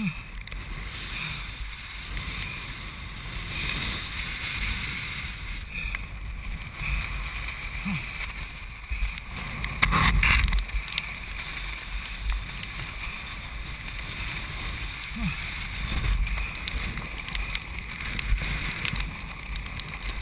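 Sandstorm wind of around 50 knots buffeting a helmet camera's microphone: a steady rushing with a deep rumble that swells in gusts, the strongest gust about halfway through.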